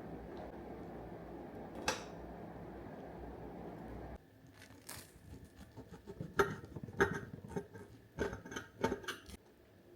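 A steady low hum with a single click, which cuts off about four seconds in. Then comes a run of light clicks, taps and clinks of small household objects being handled.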